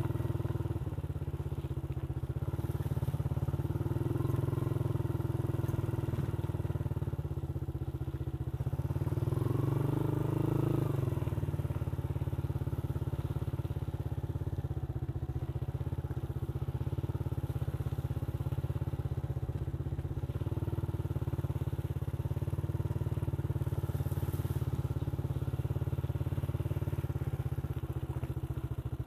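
Motorcycle engine running steadily on the move, getting louder for a moment about ten seconds in.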